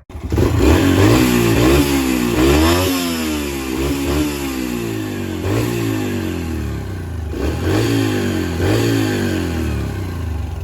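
Yamaha 125 four-stroke dirt bike engine being ridden, its pitch climbing and dropping several times as the throttle is worked.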